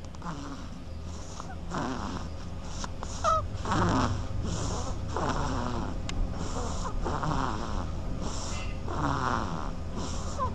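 A duckling snoring in its sleep: short raspy breaths, in and out, roughly every half to three-quarters of a second. There is a brief squeak about three seconds in.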